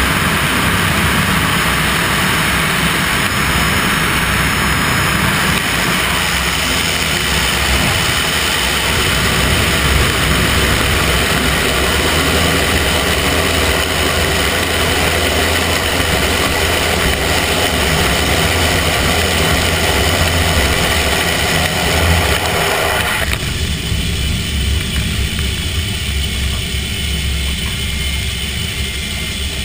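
Cessna 208B Caravan's PT6A turboprop engine and propeller running steadily, with rushing airflow, through the touchdown and rollout of a landing. About three-quarters of the way through, the higher rushing noise cuts off sharply and a lower engine hum carries on as the aircraft slows on the runway.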